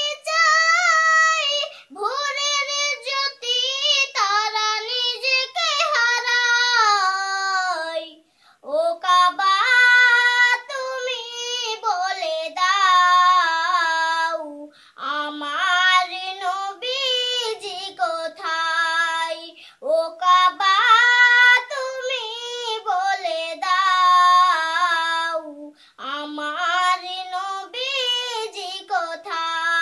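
A girl singing a Bengali Islamic naat (a song in praise of the Prophet) unaccompanied, in phrases of four to six seconds with short breaks for breath between them.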